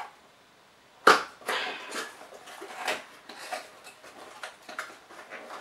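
Cardboard mug box being opened and paper packing rustled and crinkled as it is pulled out, in irregular bursts. A sharp knock or snap of the box about a second in is the loudest sound.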